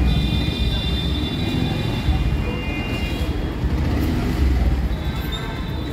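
Low rumble of motorcycle engines at a petrol pump forecourt, with steady high-pitched tones over it for the first half and again near the end.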